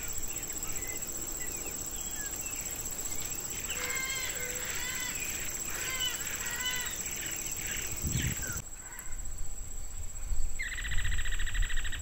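Chopi blackbirds calling and singing: a run of repeated arched, whistled notes, with a steady high insect drone behind. Near the end a rapid buzzing trill starts.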